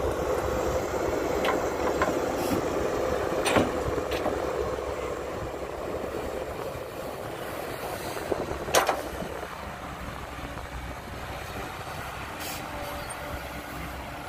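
Cat 312B hydraulic excavator running under load as it swings and digs soil, its diesel engine and hydraulics making a steady drone. A whine sounds over the first few seconds and then fades. Several sharp metallic clanks come from the bucket and linkage, the loudest about three and a half and nine seconds in.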